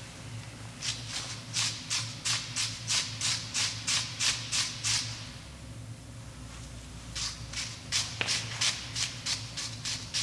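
Hand-held wire brush scrubbing rust off rear brake parts in quick back-and-forth strokes, about four a second, in two runs with a pause of about two seconds between them.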